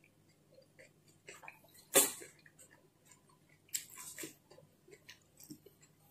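A person chewing a mouthful of soft fresh popiah (spring roll), with wet mouth clicks and smacks; the loudest smack comes about two seconds in, with another cluster near four seconds.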